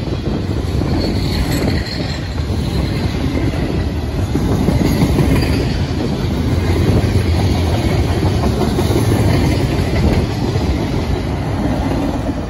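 Freight cars of a CSX manifest train, mostly autoracks, rolling past close by: a steady, loud rumble with the clickety-clack of wheels over the rail joints.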